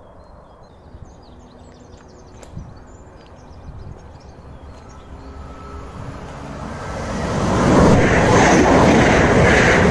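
Electric passenger train approaching and passing at speed: a rush of wheels on rail that builds from about six seconds in and is loud and steady from about eight seconds.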